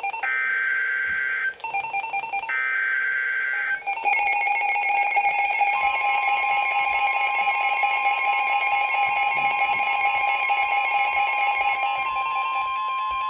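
NOAA Weather Radio Emergency Alert System signal: two raspy SAME digital header bursts, then a rapidly pulsing electronic alarm beeping from about four seconds in until about twelve seconds in. From about six seconds in the steady 1050 Hz warning alarm tone sounds, announcing a severe thunderstorm warning.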